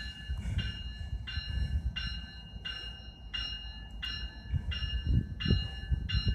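Electronic railroad bell ringing in an even repeat, about three strokes every two seconds, over the low sound of a train moving through the station.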